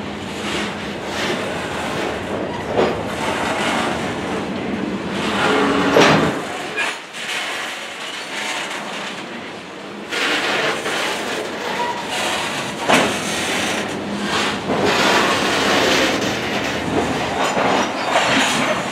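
Freight train of covered hopper cars rolling past close by: steady wheel-on-rail noise with sharp knocks about six and thirteen seconds in, and a quieter stretch between them.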